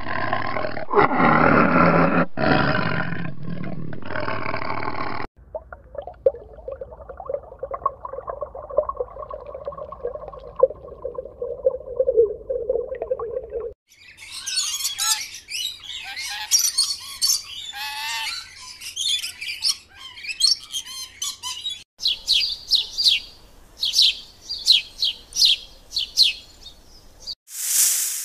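A string of animal sounds cut one after another: a loud roar for about five seconds, then a lower rough call for about eight seconds, then birds chirping in quick rapid runs, ending in a short hiss.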